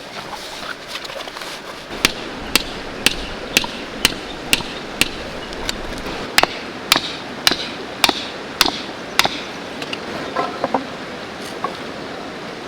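A hammer driving a tent peg in two runs of sharp, evenly spaced blows, about two a second: seven blows, a short pause, then six more.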